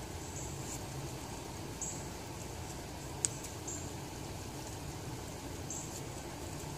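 Quiet handling noise as cord is worked into half hitches around a wooden stick: a few short, faint high squeaks and one sharp click about three seconds in, over a steady low hum.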